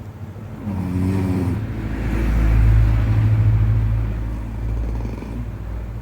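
A sleeping person snoring loudly: a short pitched snore about a second in, then a long, low rumbling snore that swells and fades over about four seconds.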